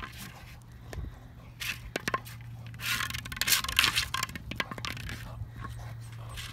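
A boxer dog nosing and pawing a rubber ball along rough asphalt: scraping and scuffing in bursts, the longest and loudest from about three to four seconds in.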